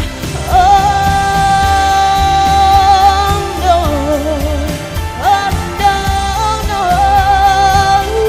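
A woman singing a pop ballad over a band accompaniment with a steady beat, holding two long notes with vibrato, the second beginning about five seconds in.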